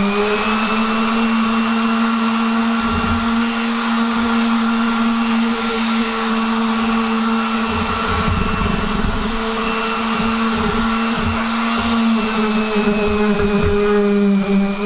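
Hofer (Aldi) Workzone corded random orbital sander running at steady full speed while sanding a wooden panel: an even motor hum with overtones and no change in pitch.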